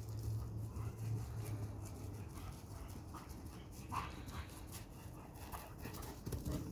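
Dogs at play on grass: a large dog and a puppy scuffling and panting, with one brief high sound about four seconds in.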